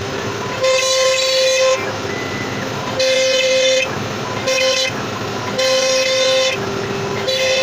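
Background music: sustained, horn-like chords that change about once a second.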